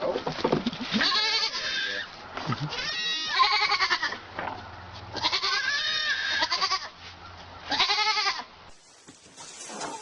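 Pygmy goat bleating loudly, four long wavering bleats one after another, cut off abruptly near the end.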